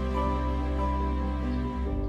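Background music: soft sustained chords that change to a new chord near the end.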